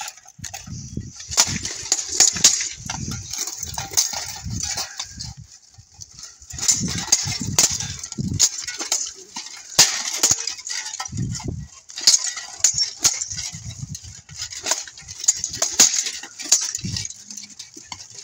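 Steel plate armour clanking and longswords clashing during an armoured sword fight: a rapid, irregular run of sharp metallic clinks and strikes, broken by a couple of short lulls.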